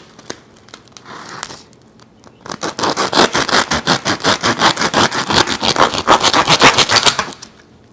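A knife sawing through the crisp crust of a freshly baked French baguette, a quick run of crackling crunches at about six a second starting a couple of seconds in and stopping near the end, with a fainter scrape before it.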